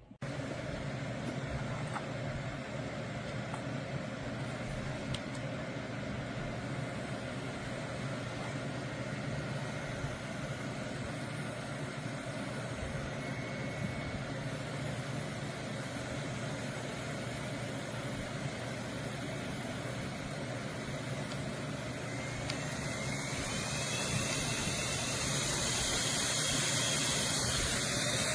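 JISULIFE pocket turbo fan switched on, its small motor running steadily with a rush of air. About 22 seconds in its pitch rises and the air rush grows louder and hissier as it speeds up.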